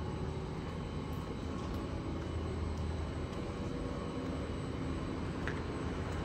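Steady low rumble of distant vehicles, the background hum of the city, with a few faint ticks.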